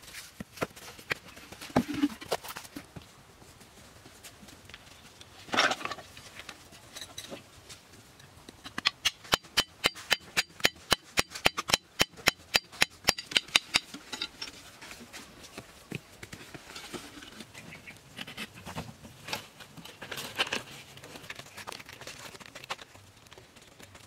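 Hand hammering during stone-and-wood building work: a fast, even run of sharp knocks, about four a second, lasting about five seconds near the middle. Scattered single knocks and a scrape-like burst come before and after.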